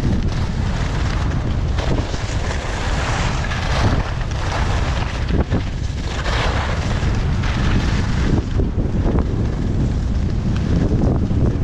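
Wind rushing over a downhill skier's camera microphone, a steady low rumble, with the hiss of skis on packed snow swelling and fading with the turns.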